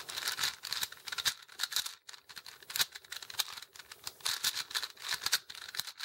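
Rapid, irregular plastic clicking and clacking of a 4x4 Rubik's cube as its layers are turned by hand in a fast run of moves (a Y-perm algorithm).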